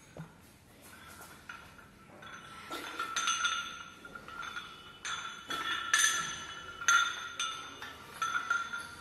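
Weight plates on a loaded barbell clinking against each other and the bar during curls, each knock leaving a short metallic ring. The clinks begin about two and a half seconds in and come every second or so, some in quick pairs.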